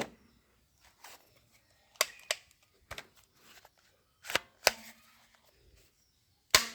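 Scattered short rustles and clicks of objects being handled, about seven over several seconds, with quiet in between.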